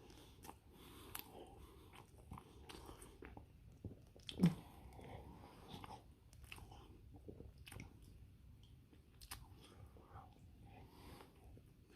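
A person chewing a spicy chili dog in a toasted bun, with many small wet mouth clicks and smacks, and one louder brief low sound about four and a half seconds in.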